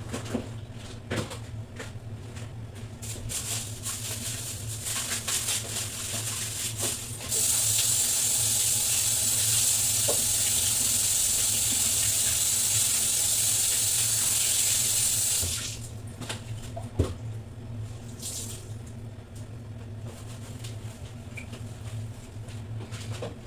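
Water tap running steadily into a sink for about eight seconds, turned on about seven seconds in and off near the middle, with small knocks and clatter of things being handled before and after.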